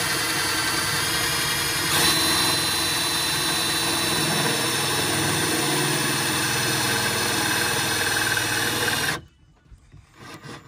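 Cordless drill with a twist bit drilling through the steel floor pan of a car chassis beneath a roll-cage base plate. It runs steadily, then cuts off suddenly about nine seconds in.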